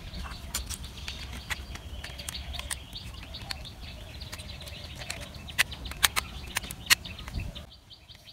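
Small plastic toy-car parts being handled and pressed together, giving scattered sharp clicks and taps. The loudest snaps come a little past halfway.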